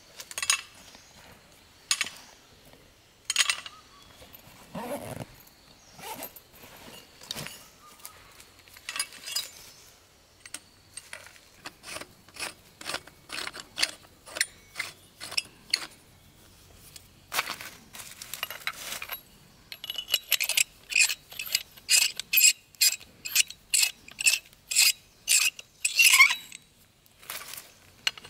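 Short scraping and clicking strokes of metal hand tools, scattered at first, then a quick even run of strokes, about two or three a second, with a metallic ring for several seconds near the end.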